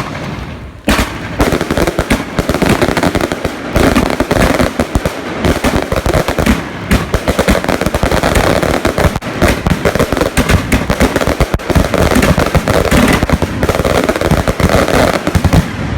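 Funke 50 mm 'Machine Gun' fireworks cake firing in a continuous rapid barrage, many shots a second running together with bursts and crackle. It jumps sharply louder about a second in.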